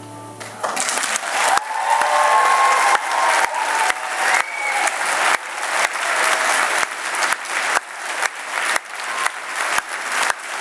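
The last held notes of piano music die away, and within the first second an audience breaks into applause, clapping steadily.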